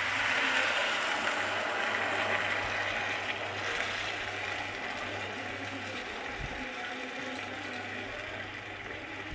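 Water poured into a hot pan of fried eggs and potatoes in spiced masala, hissing and sizzling, strongest in the first second or two and then settling to a softer simmer. A steady low hum runs underneath.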